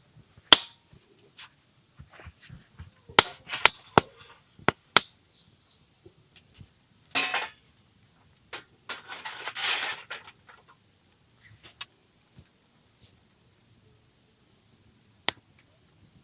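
Camp gear being handled: a string of sharp clicks and knocks, some loud, with short bursts of rustling or scraping about seven seconds in and again from about nine to ten seconds.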